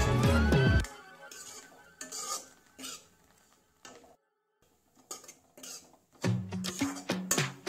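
Steel spoon scraping and clinking against a metal kadhai, stirring crumbled bread as it roasts for bread halwa. Background music plays for the first second and returns about six seconds in.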